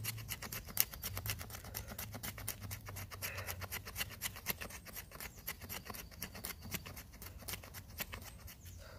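Knife blade scraping a stick of fatwood in quick, even strokes, about six a second, shaving off fine resinous dust and curls for fire-lighting tinder.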